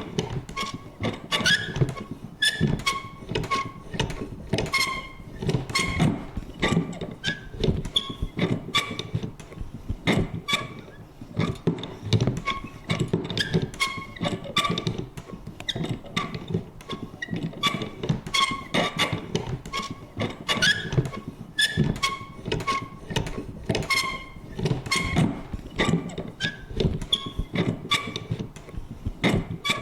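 Vintage paper punch working over and over: sharp clicks, two or three a second in an uneven rhythm, many with a short metallic ring.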